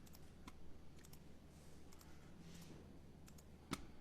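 Faint, scattered clicks at a computer as a program is being entered, with one louder click near the end.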